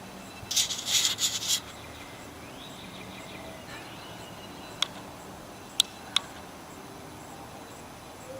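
Casio watch arcing inside a running microwave oven: a burst of crackling sparks about half a second in that lasts about a second, then three sharp snaps a few seconds later, over the oven's steady hum. The arcing is destroying the watch.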